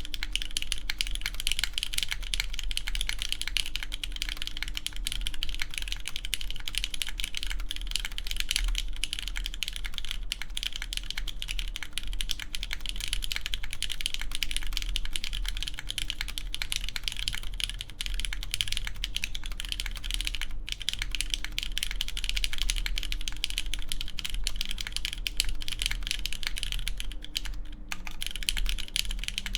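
Continuous fast typing on a mechanical keyboard with lubed Cherry MX Red linear switches, aluminum plate and GMK keycaps: a dense, even stream of key presses.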